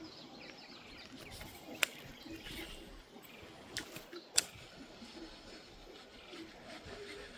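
Faint outdoor ambience with distant birdsong, broken by a few sharp clicks: one about two seconds in, then a small cluster ending in a louder click around four and a half seconds.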